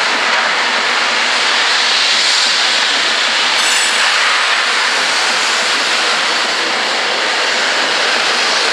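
Steam locomotive moving slowly over the tracks with a loud, steady hiss of escaping steam and no separate exhaust beats.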